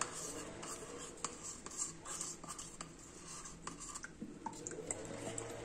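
Plastic spoon scraping a thick glycerin and xanthan gum gel out of a plastic measuring cup: faint scrapes with small scattered clicks of plastic on plastic.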